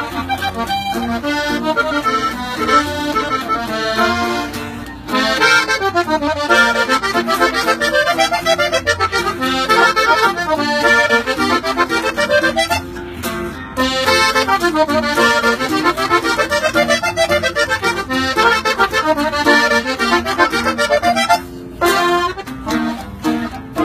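Button accordion playing fast, ornamented melody runs in norteño style, over guitar strummed as accompaniment. The music breaks off briefly about five seconds in and again shortly before the end.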